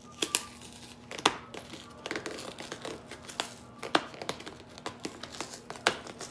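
Packing tape being peeled off a cardboard mailing box, crackling and tearing, with several sharp snaps as it pulls free.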